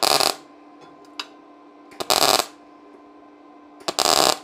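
MAG welding arc of a MIG200 D3 inverter welder with 0.8 mm solid wire, striking three short tack welds on thin sheet steel: three crackling bursts of about half a second each, about two seconds apart. A faint steady hum runs between the tacks.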